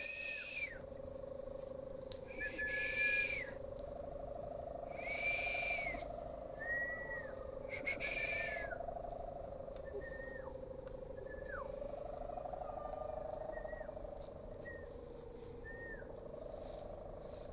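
Kite hummer (sendaren), 4 metres long, on a large pegon kite, droning as a steady, slightly wavering hum. Four loud hissing bursts, each with an arched whistle in it, cut in during the first nine seconds. Short falling chirps come later.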